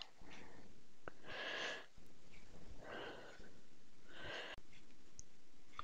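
Hands kneading pizza dough on a floured work surface: soft rubbing, pushing swishes about every second and a half, with a few faint clicks.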